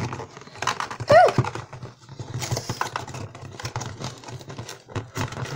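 A small cardboard toy box being torn open by hand: irregular crackling, scraping and tearing of the carton and its tape. About a second in there is a brief voice-like sound that rises and falls in pitch, the loudest moment.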